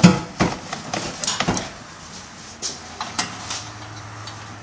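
Irregular knocks and clunks as the factory cat-back exhaust pipe is worked up and down to free it, with a low steady hum from about three seconds in.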